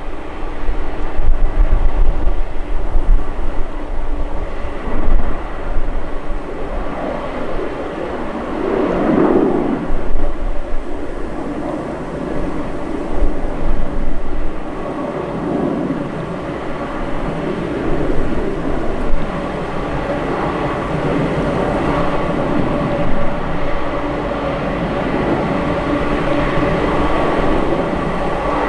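Jet airliner engines running at low power: a steady rumble that swells and fades, with a whine held on a few steady tones.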